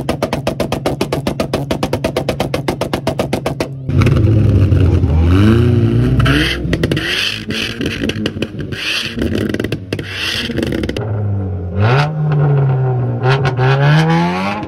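Car engines revved hard one after another. First a Honda Prelude's engine is held on the rev limiter, stuttering about ten times a second. From about four seconds in, a Volkswagen Passat revs up and down repeatedly, and near the end a Dodge Dart GT is blipped in short revs.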